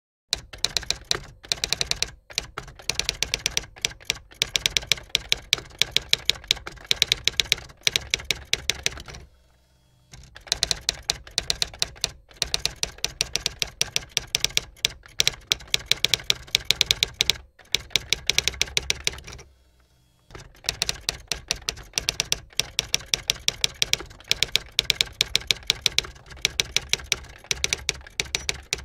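Typewriter keys clacking in quick runs of strikes, with pauses about nine and about nineteen seconds in, as text is typed out.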